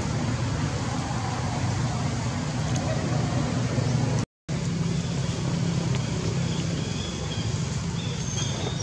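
Steady low rumble of motor traffic, cut off for an instant about four seconds in. A few short faint high squeaks come near the end.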